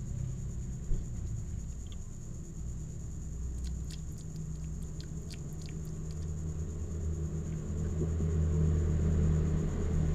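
A cat chewing on a piece of fish: a run of small crisp clicks about four to five seconds in, over a steady low rumble that grows louder near the end.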